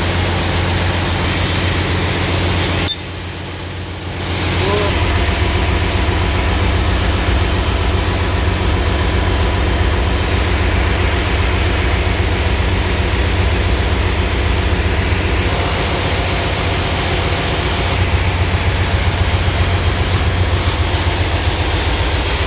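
Generator engine running with a misfire. The sound drops suddenly about three seconds in and builds back up over the next two seconds, then runs steadily again.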